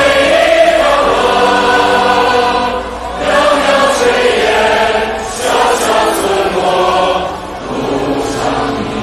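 Large choir singing together with musical accompaniment, in long held phrases broken by short pauses about three, five and seven seconds in.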